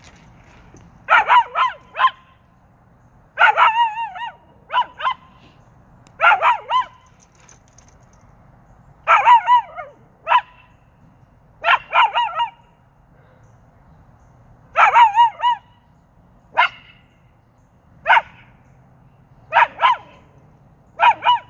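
A dog howling in hound-like bays: short, wavering high notes in clusters of one to four, repeating every one to three seconds, about a dozen times.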